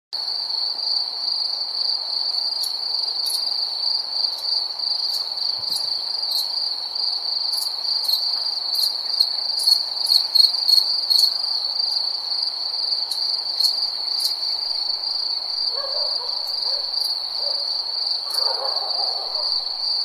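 Crickets trilling in a steady, unbroken high-pitched chorus, with scattered sharp higher ticks through the first two-thirds. A fainter, lower sound joins near the end.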